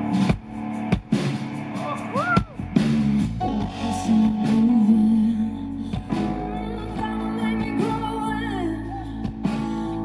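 Live acoustic pop performance: acoustic guitar strummed while a woman sings into a microphone, her voice sliding between notes.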